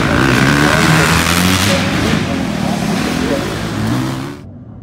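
Dirt bike engines revving hard, their pitch rising and falling as the throttle opens and closes. The sound cuts off abruptly near the end, leaving a quieter low background.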